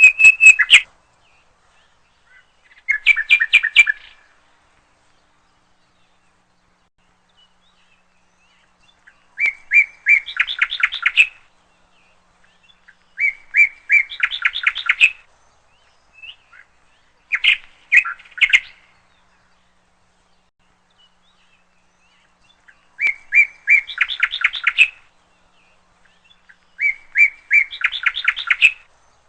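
A songbird singing short phrases every few seconds, with silent gaps between. Each phrase is a quick run of repeated notes that speeds up into a denser, faster run.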